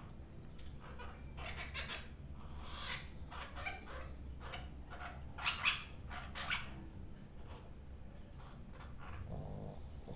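A sleeping pet snoring: irregular noisy breaths every second or two, the loudest pair about halfway through, over a low steady hum.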